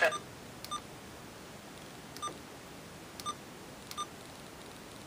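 Four short electronic beeps, unevenly spaced about a second apart, over a faint steady hiss.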